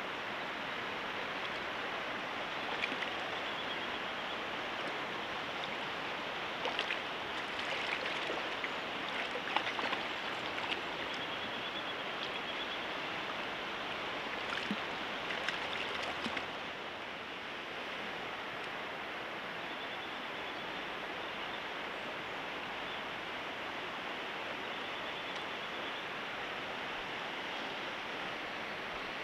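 Steady rush of river current flowing over a shallow stony bed. Between about 3 and 16 seconds in there are small splashes and clicks as a hand works in the shallow water to let a small fish go. After that only the current is heard, a little quieter.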